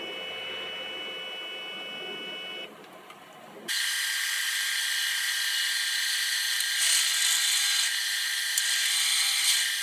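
Stepper motor of a homemade CNC fourth-axis rotary head humming steadily with several fixed tones as it indexes the work 120 degrees, stopping a little under three seconds in. About a second later a pillar drill starts drilling into an aluminium arbor, a louder hissing cut with a steady whine.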